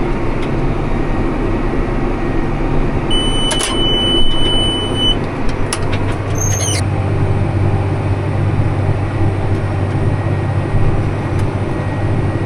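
Tractor engine running steadily while pulling a hay baler. About three seconds in, a steady electronic beep sounds for about two seconds.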